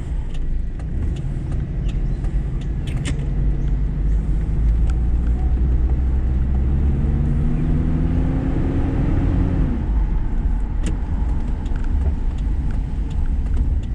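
Car driving, heard from inside the cabin: steady engine and road rumble. About halfway through the engine note rises as the car accelerates, then drops back away near ten seconds in.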